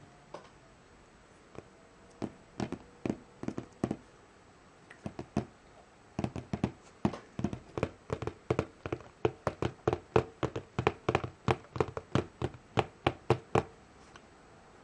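Fingertips tapping on a shrink-wrapped DVD box set. A few scattered taps come first, then a steady run of about three taps a second that stops shortly before the end.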